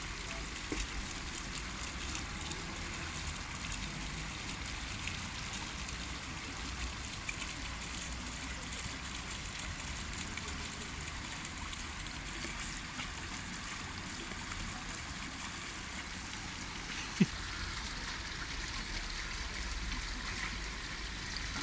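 Small fountain jets splashing steadily on wet stone paving, with a single sharp click about three quarters of the way through.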